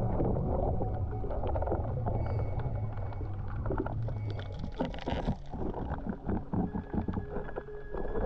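Underwater sound heard through an action camera: a dull rush of moving water with a dense crackle of small clicks and pops. There is a low rumble in the first half, and the clicks grow sparser and sharper later on.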